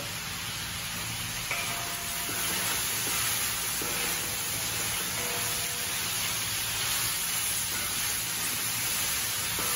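Sliced peppers and onions sizzling steadily in oil in a steel discada over a gas burner, stirred with a wooden spatula.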